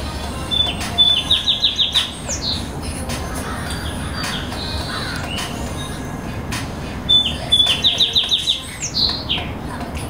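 A small songbird sings the same short phrase twice, about six seconds apart: a couple of clear notes, a fast run of repeated notes, then a high slurred note. A steady low hum runs underneath.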